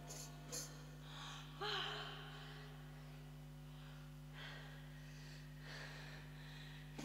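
A lull between songs in a live set: a steady electric hum from the band's amplifiers, with a few faint breaths and murmurs from the room.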